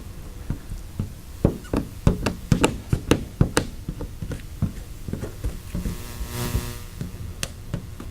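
A run of irregular sharp knocks and taps, densest between about one and a half and four seconds in, with a short hiss a little past the middle.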